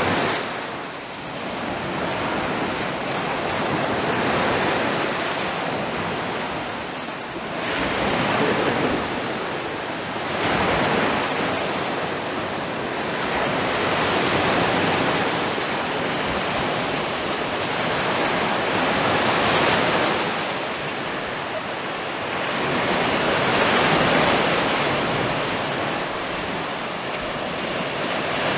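Sea waves breaking on the beach, a steady wash that swells and eases every few seconds.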